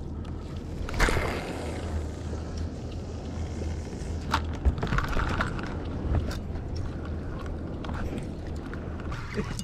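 Spinning reel being cranked to retrieve a lure, a rough mechanical whirr, over a steady low hum; a brief rush of noise about a second in is the loudest moment, and there are a few sharp clicks.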